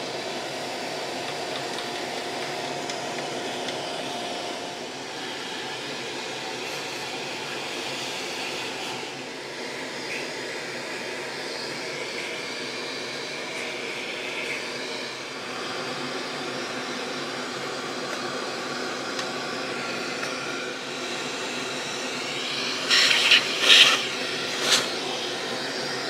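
Handheld cordless vacuum cleaner running steadily with a brush nozzle, sucking dust and cobwebs out of an amplifier chassis. There are a few louder rattles near the end.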